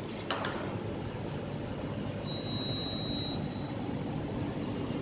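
Steady low mechanical hum of running room machinery, with a light click just after the start and a thin high-pitched beep about two seconds in that lasts about a second.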